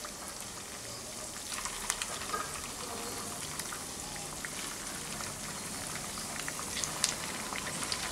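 Semolina-and-potato patties (suji aloo chop) deep-frying in hot oil in a pan: a steady sizzle, with a few light clicks.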